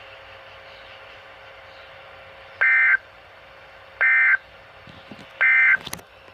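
Emergency Alert System end-of-message data bursts on NOAA Weather Radio: three short, shrill digital tone bursts about 1.4 seconds apart, over faint radio hiss, marking the end of the weekly test message. A sharp click follows near the end.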